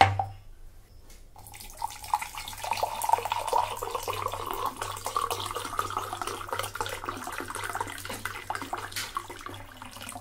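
A drinking glass set down on a counter with a knock, then water poured into it in a steady splashing stream, its note rising a little as the glass fills.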